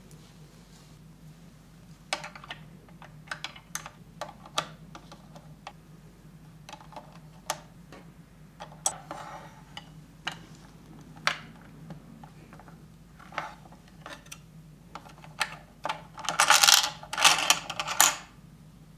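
Hands handling a red plastic Megahouse 'Choco de Coin' chocolate-coin maker: scattered clicks and knocks of plastic parts being fitted and pressed, with a denser, louder spell of handling noise near the end.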